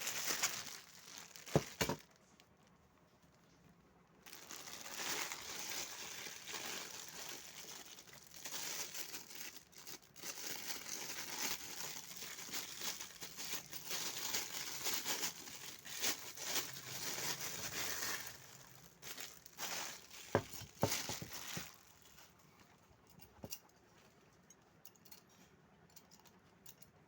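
Plastic wrapping crinkling as it is handled, in long stretches, with a few sharp knocks near the start and again about three-quarters of the way through. No horn is sounded.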